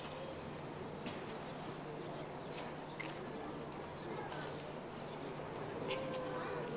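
Faint outdoor ambience: a steady low hum under a few faint bird calls, one drawn-out call near the end, and an occasional light tick.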